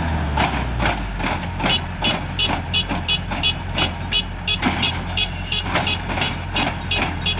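Kubota DC-105X combine harvester's diesel engine running steadily while its reversing alarm beeps rapidly, about three high beeps a second, starting after a second or so.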